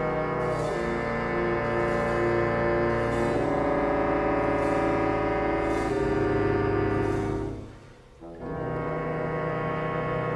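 Background music of slow, held chords that change every two to three seconds, breaking off briefly about eight seconds in before resuming.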